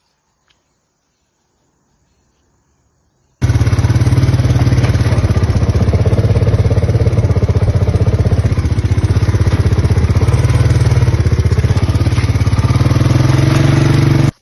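Near silence, then about three and a half seconds in an engine starts sounding loud and close, running steadily at an even speed with a rapid low pulsing, and cuts off abruptly at the end.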